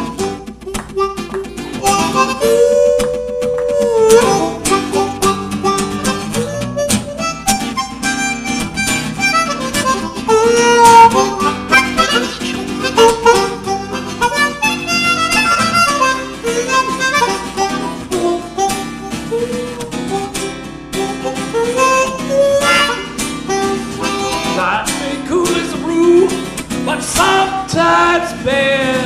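Blues harmonica solo with notes bending in pitch, over strummed acoustic guitar accompaniment.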